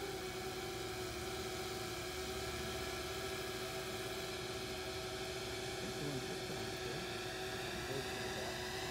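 The electric-motor propellers of the Langley Aerodrome No. 8 tandem tilt-wing VTOL testbed humming steadily in flight. There are several steady tones over a hiss, and the higher ones rise slightly in pitch toward the end.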